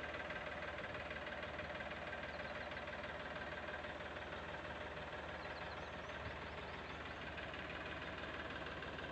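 Farmtrac tractor's diesel engine running steadily at idle.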